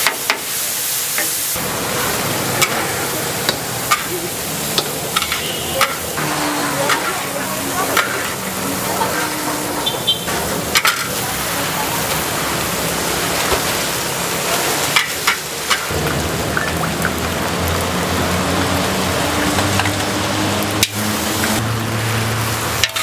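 Noodles frying in a hot wok: a steady sizzle broken by irregular sharp knocks of a spatula stirring against the pan.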